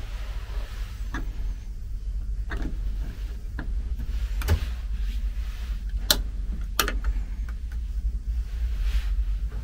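Wall light switches being clicked by hand: several clicks, three of them sharp in the second half, over a steady low rumble.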